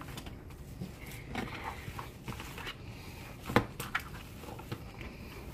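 Bare hands kneading raw ground meat in a plastic tray: faint, soft squishing, with a sharper tap about three and a half seconds in.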